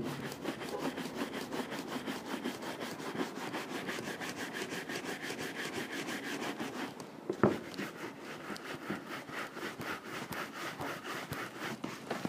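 Large horsehair shoe brush buffing a polished leather boot in quick back-and-forth strokes, about six a second, bringing up the shine as the final step after polishing. The brushing pauses briefly about seven seconds in, with a single sharp knock, then carries on.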